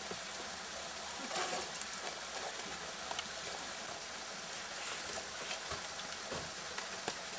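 Steady rushing hiss of outdoor background noise, with a few faint, sharp knocks of an ice axe and crampons striking the frozen waterfall's ice.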